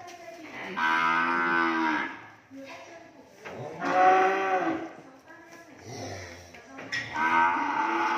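Cattle mooing: three long, loud calls, each a second or more, spaced about three seconds apart, the last still going at the end.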